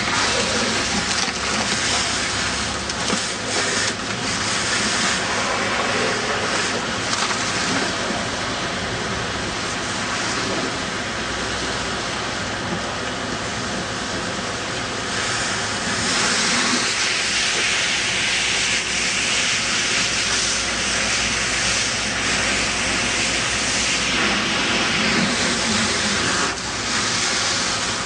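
Steady hissing of a fire hose spraying water onto a burning car, the water flashing to steam on the hot wreck, with an engine humming steadily underneath.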